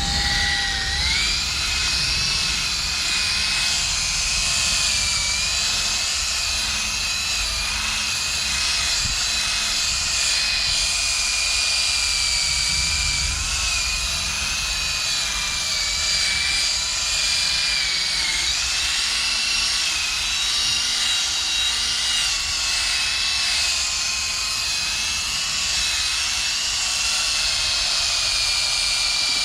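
Power drill spinning a 2000-grit sanding pad against a plastic headlight lens during wet sanding. Its whine climbs to full speed about a second in, then runs steadily, the pitch dipping slightly now and then as the pad is pressed on.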